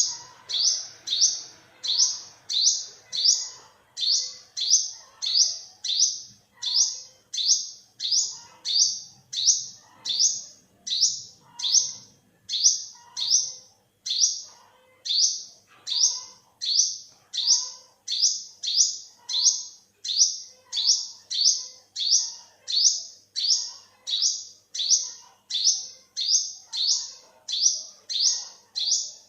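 Olive-backed sunbird calling: a short, high-pitched chirp repeated about twice a second in a steady, even rhythm.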